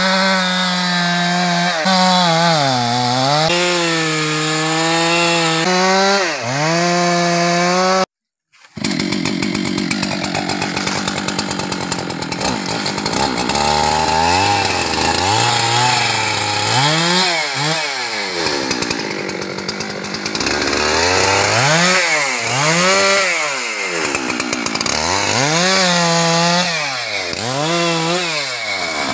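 Husqvarna 390XP two-stroke chainsaw running at high revs and cutting teak wood, its engine pitch dipping under the load of the cut. The sound drops out for about half a second around eight seconds in. After that the saw revs up and down repeatedly.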